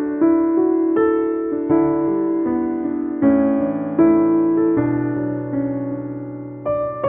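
Background music: gentle piano (or electric piano) playing slow, sustained chords and notes.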